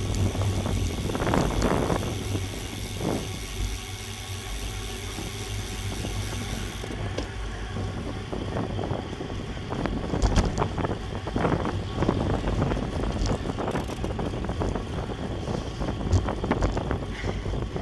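Wind rushing over a bicycle-mounted action camera's microphone while riding at race speed, over a steady road and tyre rumble with occasional short knocks.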